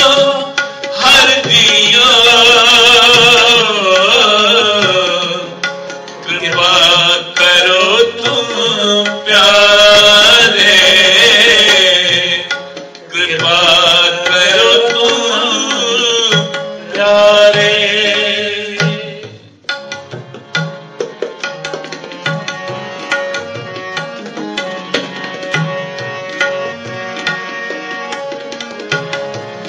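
Sikh kirtan: a man sings a devotional hymn over harmonium and tabla. About two-thirds of the way in, the singing stops and the harmonium and tabla play on alone, more quietly, the harmonium holding steady chords under the tabla strokes.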